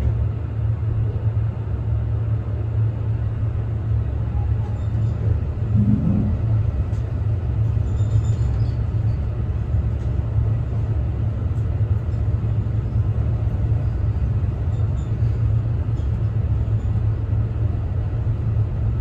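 Steady low rumble inside a moving passenger elevator car as it travels between floors, with a few faint ticks.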